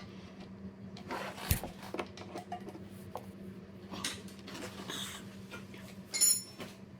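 Scattered clinks, knocks and rubbing of metal tools or parts being handled, over a steady low hum. One sharp knock comes about one and a half seconds in, and a short high metallic ring sounds near the end.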